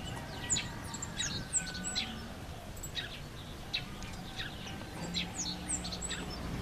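Small birds chirping: many short, high chirps and quick falling whistles, scattered throughout, over a faint low rumble.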